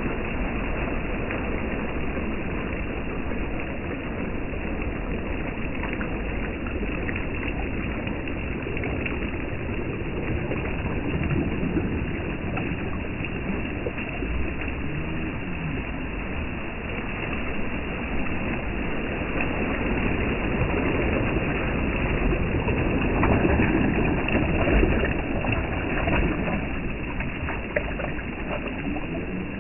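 Small waves lapping and washing over the sandy shoreline in shallow water, a steady rush with a low rumble underneath, swelling a little about three-quarters of the way through.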